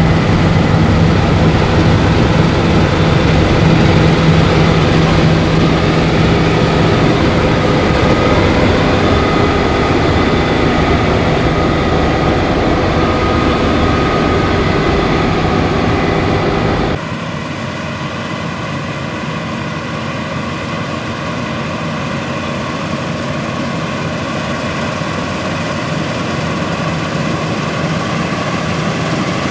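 Claas Lexion 8900 combine harvester running steadily while harvesting wheat, a loud continuous machine sound with held engine tones. About seventeen seconds in it drops suddenly in level and loses most of its deep rumble, then runs on steadily.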